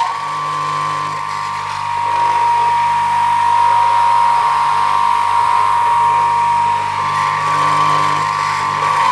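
HYCO 10-inch miter saw with a brushless AC induction motor running free at full speed with a steady whine and hum, no wood being cut. It is switched off at the very end and its pitch starts to fall as the blade winds down.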